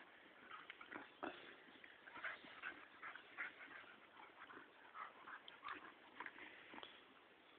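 A harrier hound and a pitbull mix playing: a faint, rapid string of short, irregular dog noises.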